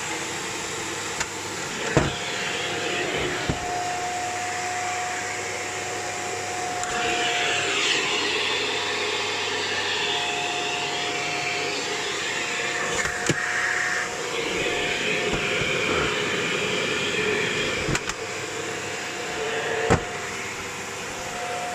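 Shark Lift-Away NV601UK upright vacuum cleaner running: a steady motor whine over a rushing airflow hiss. The hiss grows louder and higher for a few seconds twice, and a few sharp knocks and clicks come through.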